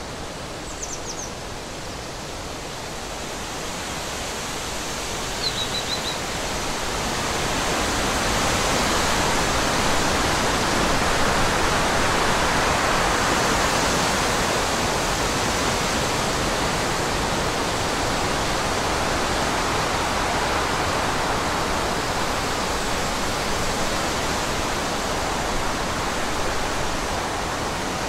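Storm wind and heavy rain making a steady rushing noise, which grows louder over the first ten seconds and then holds.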